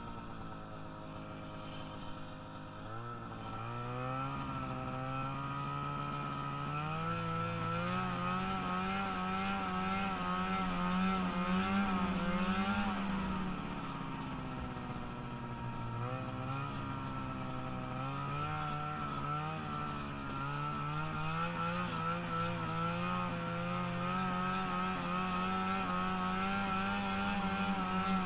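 Engine of a freshly rebuilt small vehicle being ridden: it picks up speed and holds steady, eases off about halfway through, then accelerates and holds again.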